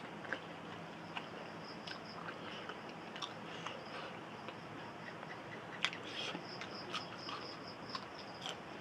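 A person chewing and biting food close to the microphone, with scattered small wet mouth clicks.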